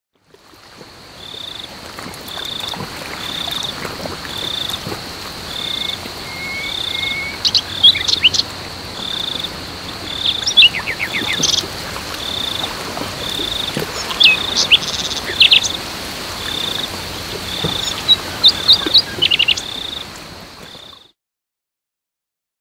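Evening outdoor wildlife ambience: a steady high insect drone, a regular high chirp about once a second, and scattered quick bird chirps. It fades in at the start and cuts off about a second and a half before the end.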